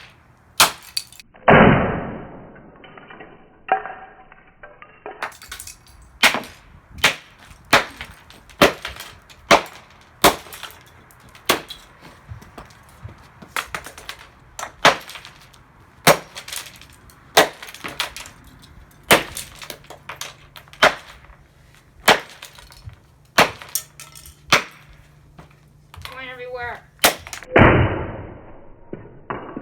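The plastic casing of a Dreamsky DS206 alarm clock radio being struck over and over as it is smashed apart, with sharp hits about once a second. Two heavier blows ring on, one about a second and a half in and one near the end.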